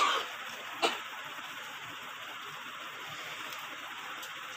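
Capped plastic bottles being handled on a table: a short rustle, then a sharp plastic click about a second in, with a couple of faint ticks later over a steady hiss.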